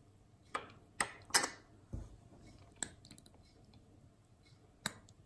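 A plastic pipette and small plastic beaker being handled as red slime mixture is drawn up and squeezed out into a tub of setting solution: about half a dozen short, soft clicks and squishes, spread apart.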